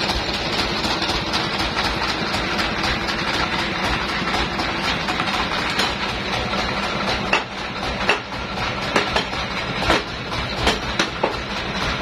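Sawmill machinery running with a steady hum. From about seven seconds in, a series of sharp knocks and clanks as the log is handled on the metal log carriage.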